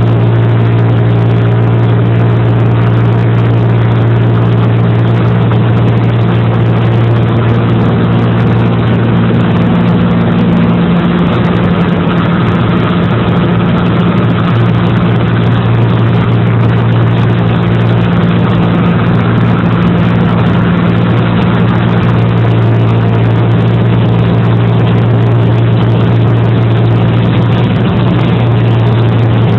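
Engine running at a steady, constant speed: a loud, unbroken low drone with overtones, as heard from inside a moving vehicle.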